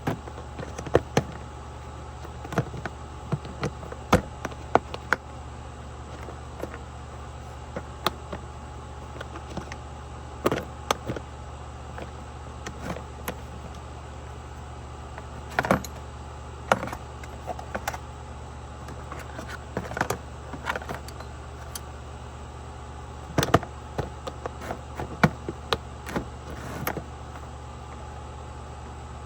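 Irregular clicks and knocks of small hard objects being handled, over a steady low hum.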